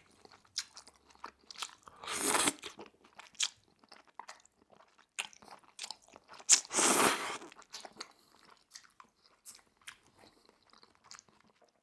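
Close-miked eating of udon noodles: chewing with small wet mouth clicks, and two slurps, about two seconds in and at about seven seconds, the second the louder.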